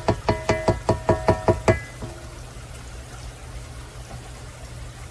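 A spatula knocking rapidly against a KitchenAid stand mixer's stainless steel bowl while stirring the batter, about five knocks a second with the bowl ringing at each one. The knocking stops about two seconds in.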